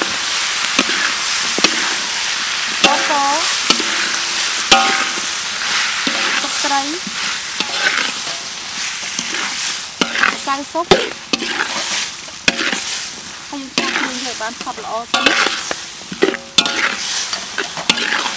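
Sliced onions sizzling in oil in a metal wok while a metal spatula stirs and tosses them, scraping and clacking against the wok's sides again and again.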